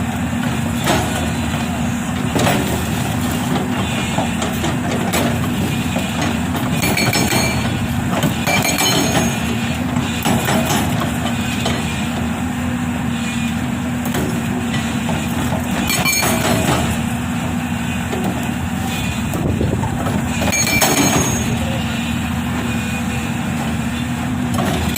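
Unicorn UN140B hydraulic rock breaker on an excavator hammering rock, over the excavator's engine running steadily, with a few louder sharp clanks.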